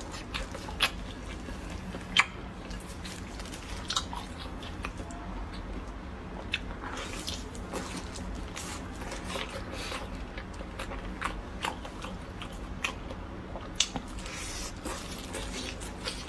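Close-up eating sounds: biting and chewing a pan-fried chicken cutlet, with irregular wet smacks and sharp clicks over a steady low hum.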